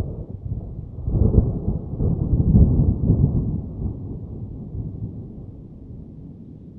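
Thunder: a sharp crack, then a deep rolling rumble that swells about a second later and slowly dies away.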